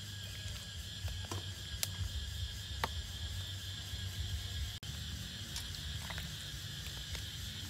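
Steady chorus of crickets and other night insects over a low steady hum, with a few light clinks of a metal ladle against the pot and glass bowl as curry is ladled out.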